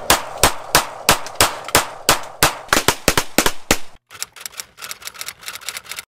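A rapid string of handgun shots, about three or four a second with sharp echoing cracks. After a short break comes a faster, fainter string of cracks, which stops abruptly.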